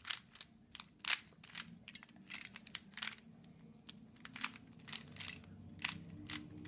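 Rubik's cube being turned fast by hand: quick, irregular plastic clicks and rattles of the layers snapping round, about three a second, over a faint steady low hum.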